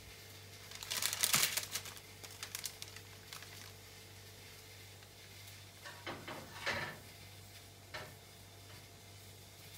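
Baking paper crinkling and a silicone spatula scraping and tapping on a lined metal baking tray as a grilled sweet potato half is set down, in short bursts: the loudest about a second in, more around six to seven seconds in.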